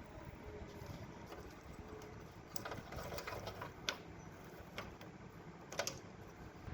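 Scattered metallic clicks and clinks of hand tools working on small motorcycle engine parts, a few seconds apart, over a low background rumble.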